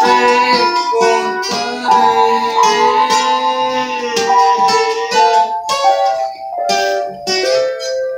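An acoustic guitar strummed together with a Casio electronic keyboard, the keyboard playing a melody of held, steady notes that step from one pitch to the next.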